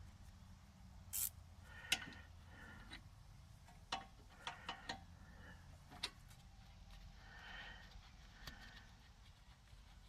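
Light metallic clinks and knocks of hand tools and loose brake-caliper hardware being handled, a handful of sharp separate strikes spread over several seconds.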